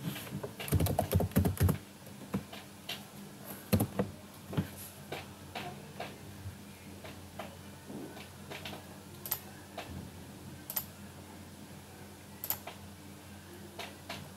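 Computer keyboard typing: a quick run of keystrokes about a second in, then scattered single clicks.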